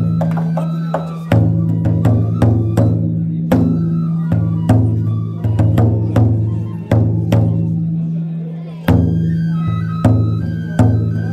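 Large taiko drum on the front of a festival yagura float, struck with sticks in a quick, uneven rhythm, each hit leaving a long low ring.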